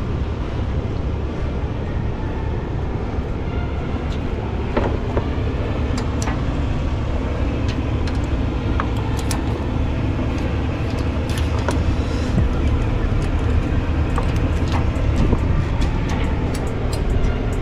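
Steel transport chain clinking and rattling against a cable reel as it is hooked on and tightened with a ratchet chain binder, the clicks coming faster near the end, over a steady low rumble.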